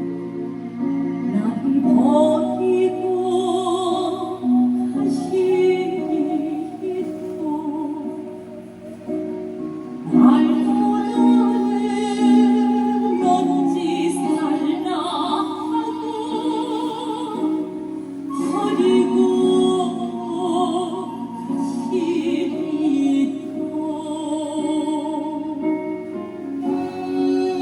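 Music with singing: a melody with a heavy, wavering vibrato over steady held tones. It dips about a third of the way through, then swells back up suddenly.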